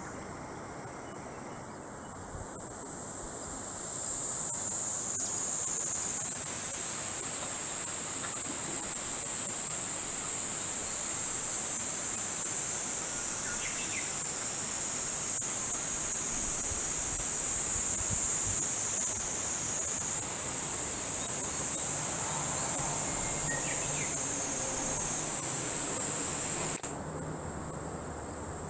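Steady high-pitched chorus of summer cicadas, growing louder a few seconds in and dropping suddenly near the end.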